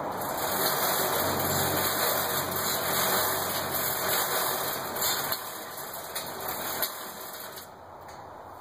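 Diamond trommel running, its steel screen drum turning with a steady mechanical rattle and hum. The noise grows quieter over the last few seconds.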